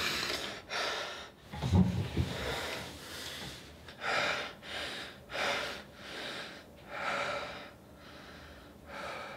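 A young man breathing hard and fast, a quick series of loud, ragged breaths in and out, about one a second or faster, as he tries to calm down from a panic.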